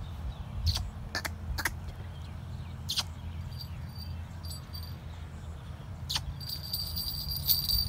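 A few short, sharp bird calls over a low steady rumble, followed near the end by a thin, high, steady whine.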